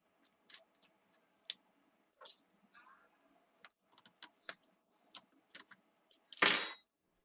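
Scattered small clicks and taps of a laptop hard drive being handled and removed from a netbook's drive bay, with a louder, half-second scraping noise near the end.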